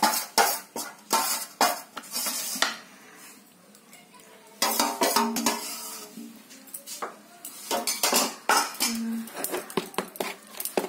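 Metal spoon scraping and clinking against a steel bowl and the jar as thick pickle is spooned in: irregular clinks and knocks, with a quieter lull about three seconds in before more clinking.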